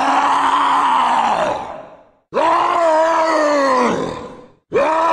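Zombie groans: long, low voiced groans, each about two seconds, sagging in pitch as it trails off, with abrupt gaps between them. A third groan starts near the end.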